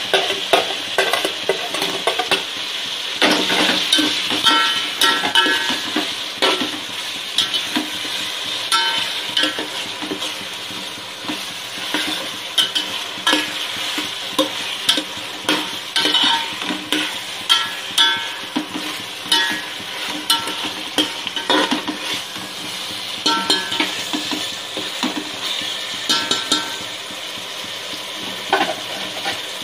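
Tomatoes and fried potato chunks sizzling in hot oil in a steel pot. A metal spoon stirring them knocks and scrapes against the pot about every second or two, some strokes leaving a short metallic ring.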